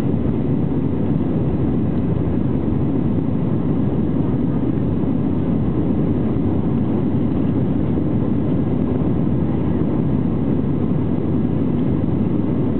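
Steady low rumble of a jet airliner's engines and airflow heard inside the cabin during the climb after takeoff, even and unchanging throughout.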